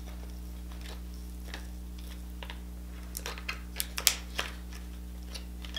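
Soft wet clicks and squishes of hands pulling apart cooked king crab leg meat and shell, a handful of sharp ticks coming in a cluster past the middle, over a steady low hum.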